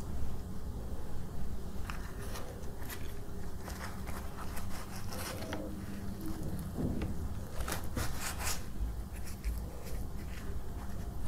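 Fingers tearing a piece off a roti (thin wheat flatbread): a dry rustling, crackly tearing in bursts, strongest about eight seconds in, over a steady low hum.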